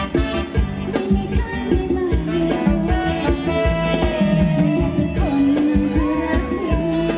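Band playing upbeat Thai ramwong dance music: a steady, driving drum beat under a held melody line.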